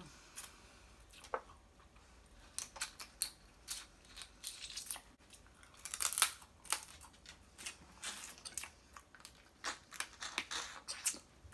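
Close-up mouth sounds of eating snow crab legs: wet sucking and slurping as the meat is drawn out of the shells, and chewing, in irregular short bursts, loudest about six seconds in.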